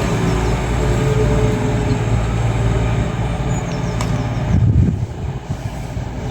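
Class 222 Meridian diesel multiple unit's underfloor diesel engines running at the platform, a steady low drone that swells briefly about four and a half seconds in and then drops away.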